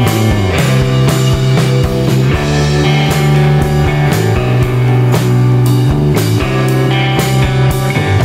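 Background rock music with guitar and a steady drum-kit beat.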